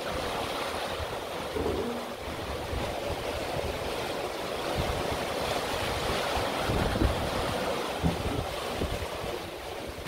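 Rough sea rushing and breaking along the hull of a sailing catamaran under way in strong wind, a steady rush of water and wind. A few low gusts buffet the microphone.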